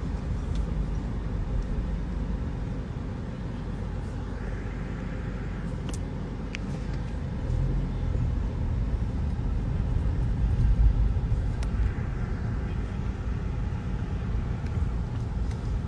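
Car heard from inside the cabin: a steady low rumble of engine and road noise, with a few faint clicks.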